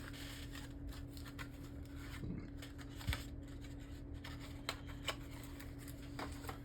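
Small objects handled by hand: scattered light clicks and rustling, over a steady low hum.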